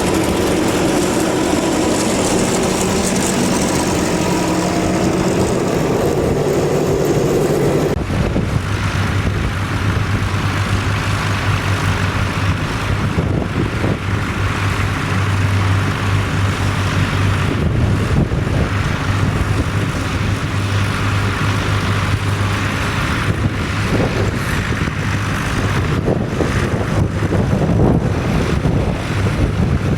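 Vintage tractor engine running steadily under load. About eight seconds in, the sound changes abruptly to a lower, deeper-running tractor engine, with a rough rushing noise over it.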